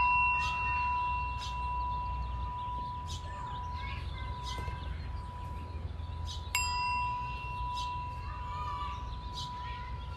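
Small brass singing bowl struck with a wooden striker, ringing with a steady tone and a higher overtone that fade slowly. It is struck again about six and a half seconds in, and the ringing carries on.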